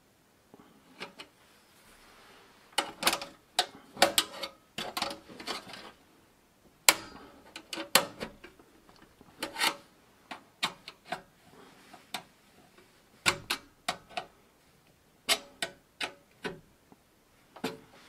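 Screwdriver levering and twisting at a stamped break-out slot cover in a computer case's sheet-steel rear panel: sharp metallic clicks, taps and scrapes in irregular clusters with short pauses, as the cover's tabs begin to work loose.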